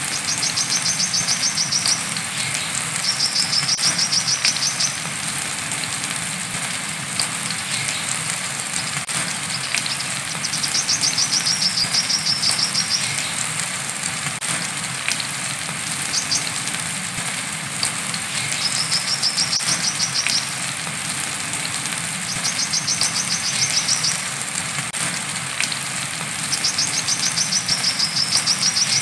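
Brown-throated sunbird (kolibri kelapa) singing its high, rapid trilled 'wiceh' phrase, each a second or two long and repeated several times with pauses of a few seconds. Steady rain hisses underneath.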